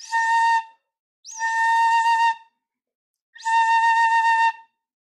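Suzuki plastic shinobue (8-hon-chōshi Japanese bamboo-style transverse flute) sounding three held notes on the same steady pitch, each about a second long with audible air noise and silent breaths between. They are long-tone practice on one note, searching for the lip spot that gives a clear, open tone.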